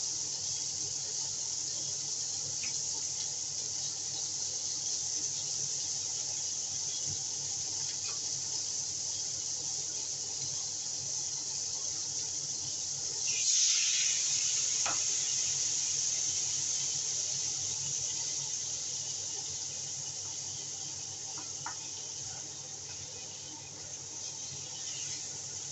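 Scallops sizzling in hot oil in a stainless steel wok, a steady high hiss. A little past halfway the sizzle flares up suddenly as liquid from a sauce bowl hits the pan, then slowly dies down, with a few faint clicks.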